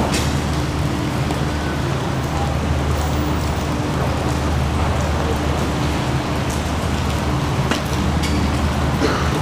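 Steady background noise of a covered station exit and hospital drop-off area: a strong low machine hum with an even hiss over it and a few faint clicks.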